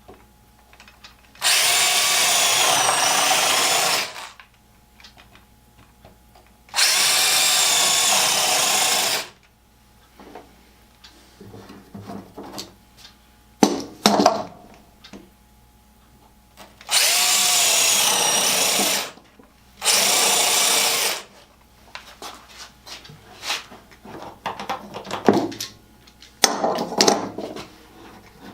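Power drill boring holes through a wooden tool box base, running in four bursts of a few seconds each, its motor pitch dipping under load. Knocks and handling clatter fill the gaps between the bursts.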